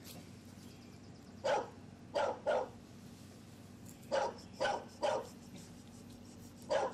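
English Bulldog puppy play-barking: seven short barks in three quick clusters, about a second and a half in, again around four to five seconds, and once near the end.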